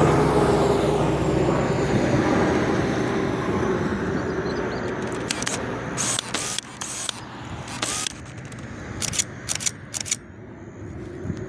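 Pilatus PC-21 single-engine turboprop trainer passing close by, its engine and propeller drone dropping in pitch and fading away over about six seconds. Through the second half, a run of sharp clicks, like a camera shutter firing.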